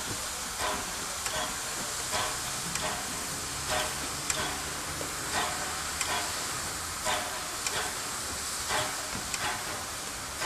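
USATC S160 2-8-0 steam locomotive moving slowly, with a steady hiss of steam and soft beats a little more than once a second.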